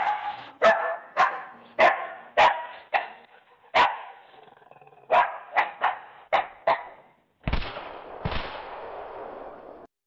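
AI-generated sound effect from AudioCraft's AudioGen: a dog barking about a dozen times in quick runs, then two gunshots with long echoing tails, about seven and a half and eight and a half seconds in.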